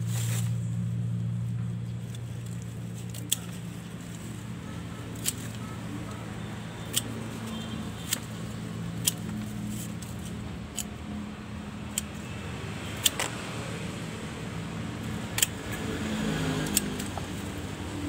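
Hand pruning shears snipping through tree roots: sharp single clicks every second or two, over a low steady hum that is strongest in the first couple of seconds.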